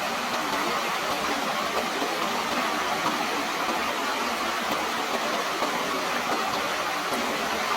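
Steady rush of flowing water, an even unbroken hiss with no splashes or drops standing out.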